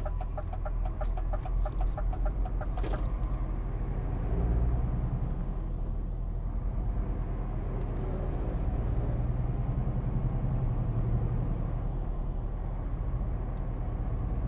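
Steady drone of a truck's diesel engine and road noise inside the cab. For about the first three seconds a fast, even run of clicking ticks from the turn indicator sounds over it, then stops.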